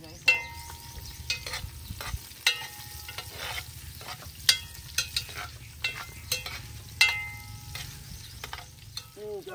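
A metal cooking utensil stirring and scraping in a metal pot, with a dozen or so irregular, sharp, ringing clanks against the metal, over a steady low rumble.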